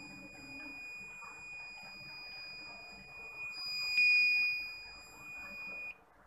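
Piezo buzzer of an Arduino rain alarm sounding one continuous high-pitched tone, the alarm that water is on the raindrop sensor. A click comes about four seconds in, when the tone grows briefly louder. Near the end the tone cuts off suddenly as the wiped-dry sensor clears the alarm.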